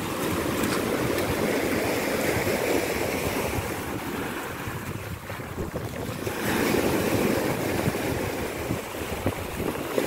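Small sea waves breaking and washing up over a pebble beach, swelling at the start, easing off, and swelling again after about six seconds.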